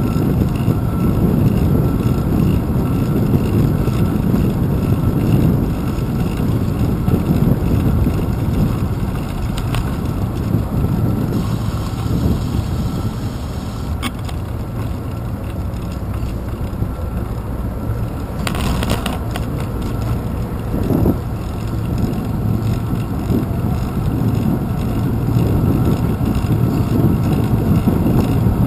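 Wind and road rumble picked up by a handlebar-mounted GoPro Hero 2 on a moving bicycle, a steady low noise with the odd knock from bumps in the path. A brief hiss comes about two-thirds of the way through.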